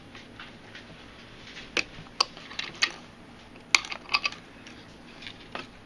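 A handful of separate sharp clicks and knocks, several clustered in the middle, as a paracord bracelet's buckles are popped off a bracelet jig.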